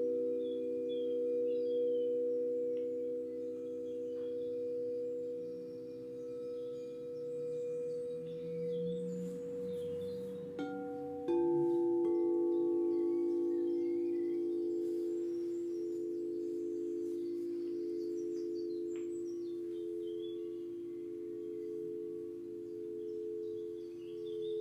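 Tibetan singing bowls ringing with long, slowly fading tones. Another bowl is struck about halfway through, and its tone pulses gently as it rings on.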